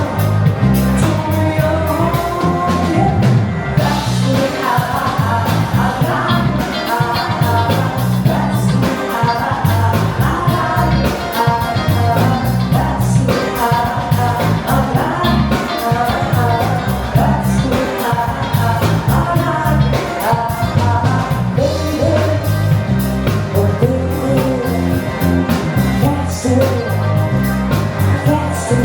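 Pop-rock song playing with a singing voice over a steady beat and bass.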